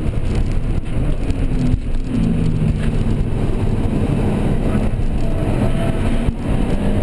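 Car engine and road noise heard from inside the cabin as the car is driven at speed on a track, the engine note shifting in pitch with the throttle.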